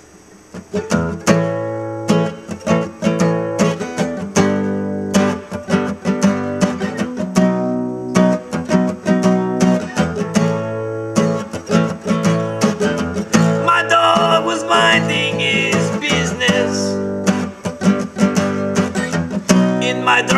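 Acoustic guitar strummed in a steady rhythm as a song's intro, starting about a second in after a brief pause.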